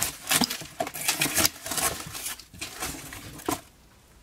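Cardboard rustling and scraping, with light knocks and clatter of metal parts shifting in a box as it is rummaged through; it dies down near the end.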